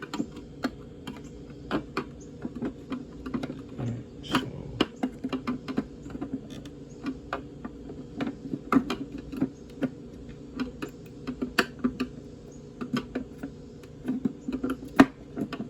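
Irregular light clicks and taps of a metal pick working against the plastic inner lens and housing of a Honda Pilot tail light, hooking the lens to pull it onto its snaps. One sharper click comes near the end.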